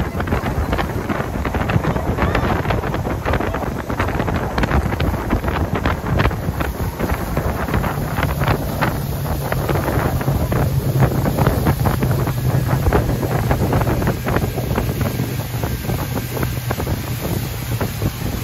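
Heavy wind buffeting the microphone in an open aluminium fishing boat under way. The hull slaps repeatedly on the chop, over the steady hum of the outboard motor, which grows stronger about halfway through.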